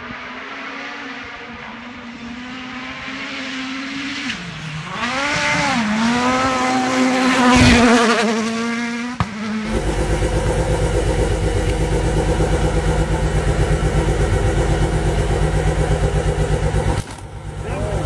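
A rally car's engine running hard as it approaches at speed, its pitch dipping and then climbing with revs and getting louder, with a single thump near its loudest. Then a Lancia Delta S4 Group B rally car's engine idling with an even, lumpy pulse.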